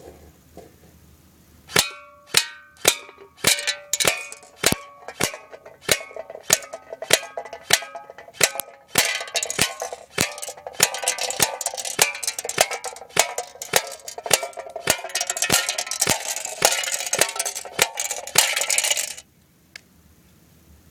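G&G Combat Machine airsoft electric gun shooting BBs into a metal can, each hit making the can ring. Single shots come about two a second, then a fast, dense stream of hits for about ten seconds that stops suddenly near the end.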